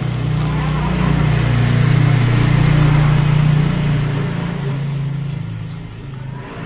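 A motor vehicle's engine running close by, growing louder over the first few seconds and then fading away.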